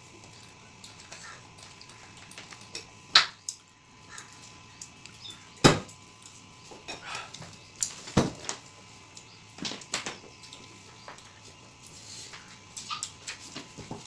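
Hands mixing and scooping rice on stainless-steel plates: scattered clinks and scrapes of fingers against the metal, with a few sharper knocks, the loudest about three, five and a half and eight seconds in.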